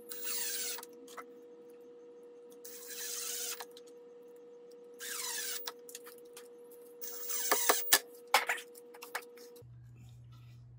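Cordless drill driving screws into wooden boards in three short bursts, each under a second. A quick run of clicks and knocks follows near the end.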